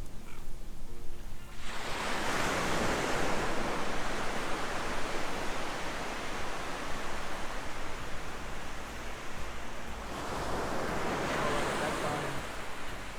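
Surf washing up the beach: a long rush of breaking waves that comes in suddenly about two seconds in, eases, and swells again near the end before fading.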